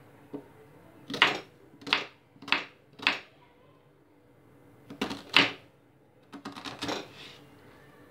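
Kitchen knife chopping an onion on a wooden cutting board: four sharp chops about two-thirds of a second apart, two more after a short pause, then a quick run of lighter cuts.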